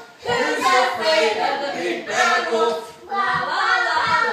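A woman and a young child singing together, unaccompanied, in phrases about a second long.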